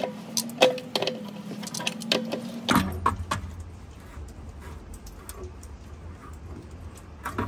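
Sharp metallic clinks of a wrench on the water-line fitting atop a gas water heater as it is loosened for disconnection, quick and ringing for the first few seconds, then fainter scattered ticks.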